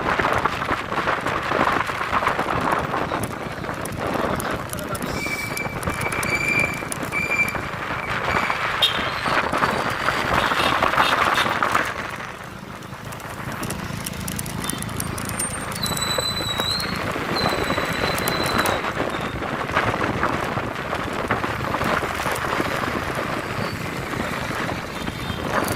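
Steady road and wind noise from a moving vehicle, with a few brief thin high tones partway through.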